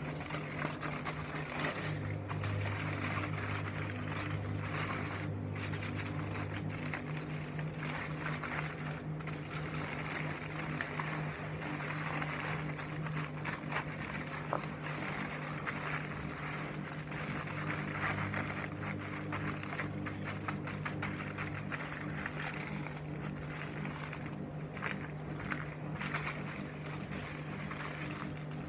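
Aluminium foil crinkling and rustling as hands fold it around food and roll it into a tight packet, over a steady low hum.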